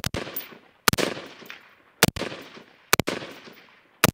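AR-15 rifle shots fired one after another, about one a second, each followed by a fading echo.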